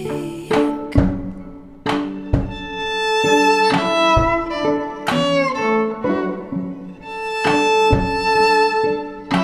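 Violin playing a melody of held bowed notes, with some short slides between notes, over irregularly spaced drum hits.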